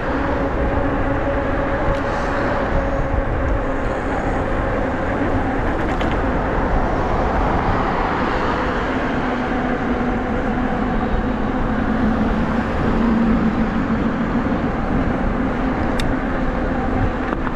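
Nakto F6 electric fat-tyre bike cruising steadily on pavement under motor power: wind rushing over the handlebar microphone with a steady drone from the motor and wide tyres underneath. A single brief click about sixteen seconds in.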